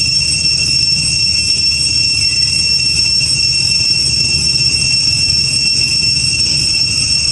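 Cicada chorus: a loud, steady high-pitched drone that does not change, over a low rumble.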